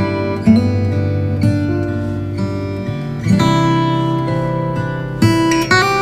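Background music: acoustic guitar playing chords, with fresh strums about half a second in, past the middle and near the end.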